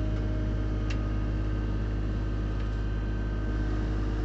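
Skid steer engine running steadily while the machine backs up with its bucket held down in float, a faint click about a second in.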